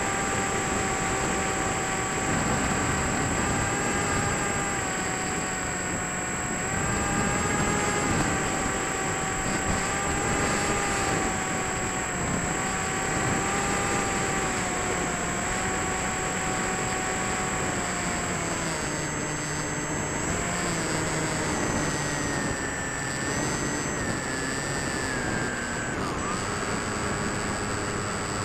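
Electric motor and propeller of an AXN RC plane in flight: a steady whine whose pitch drifts up and down with the throttle and drops a few times in the latter part.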